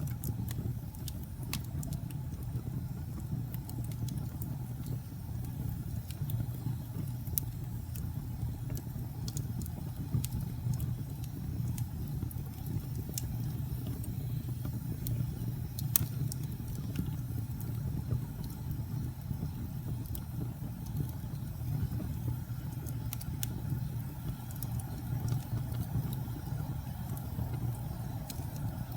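Log fire in a fireplace burning with a steady low rumble and scattered crackles and pops, one sharper pop about sixteen seconds in.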